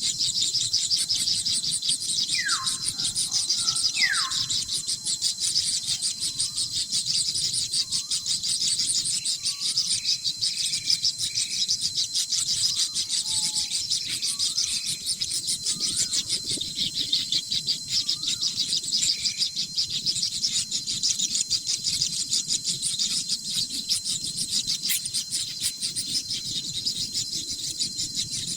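A steady, high-pitched, fast-pulsing chorus of crickets. Scattered bird calls sound over it: two quick downward whistles a few seconds in, then short chirps through the first two-thirds.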